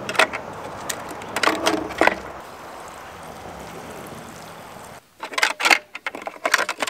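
Gasoline pouring from a plastic gas can into a push mower's engine fuel tank: a steady pour for about three seconds in the middle that stops suddenly. Before it and near the end come the clicks and knocks of the fuel cap and gas can being handled.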